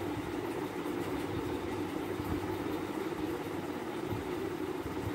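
Steady low background hum, even throughout with no distinct knocks or clicks.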